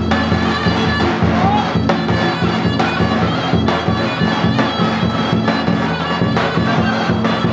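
Live Turkish folk dance music: a davul bass drum beating a steady rhythm under a loud, shrill reed wind instrument playing a fast line-dance tune.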